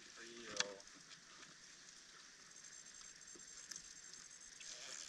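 Faint splashing and lapping of seawater around a person wading in, with scattered small ticks and crackles.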